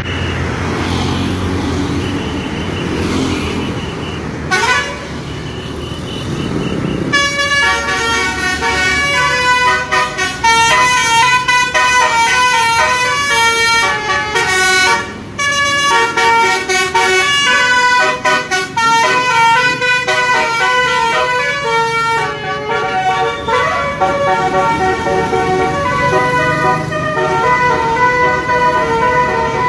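Indonesian "telolet" multi-tone musical air horn on a Tri Putra Jaya bus, playing a stepped melody of sustained notes from about seven seconds in, over the bus's running engine. Before the melody starts there is engine noise with a single short rising tone.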